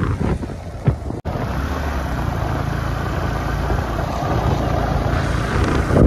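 Motorbike engine running steadily while riding, with wind and road noise over it. A sharp knock comes just before a brief dropout about a second in.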